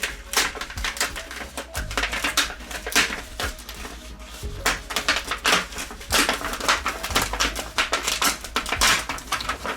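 Rapid, irregular crackling and rustling of the TV's white reflector paper and its tape being picked at and pulled to start lifting the sheet, over a low steady hum.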